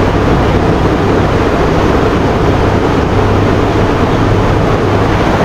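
Fast-flowing river rushing over rocks: a steady, loud noise with a deep rumble underneath.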